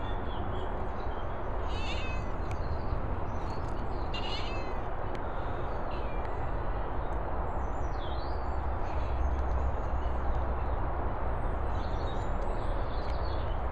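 Several short, high animal calls a few seconds apart, one of them falling in pitch, over a steady background rumble.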